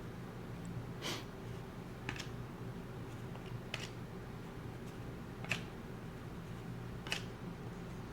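Trading cards being flipped through one at a time, a short sharp card-handling swish or snap five times, every second or two, over a low steady hum.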